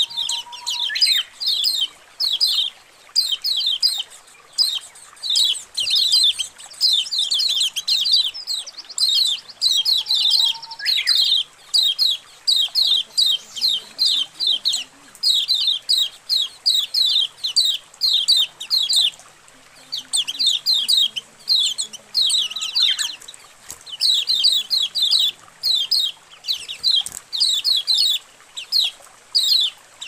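A flock of kecial kuning (white-eyes) chattering: rapid runs of short, high, downward-slurred chirps from many birds at once, almost without pause.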